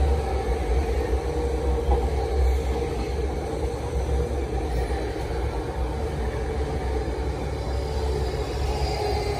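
South Western Railway electric multiple unit rolling slowly past on the adjacent track: a steady low rumble of wheels on rail with a steady hum.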